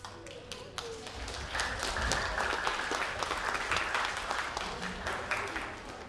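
Audience clapping, a dense patter of many hands that swells about a second and a half in and eases off near the end, with some voices mixed in.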